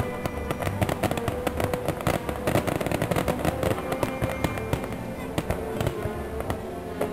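Aerial firework shells bursting in quick succession, many bangs in a row, with music playing underneath.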